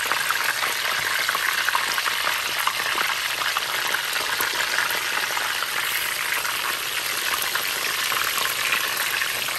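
Salted tilapia frying in hot vegetable oil in a frying pan: a steady, dense sizzle of fine crackling pops.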